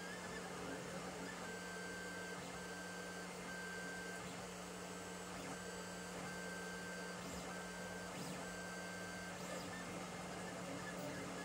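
Lulzbot TAZ 5 3D printer printing: its stepper motors whine in steady tones that switch on and off every second or so as the tool head moves, over a steady hum.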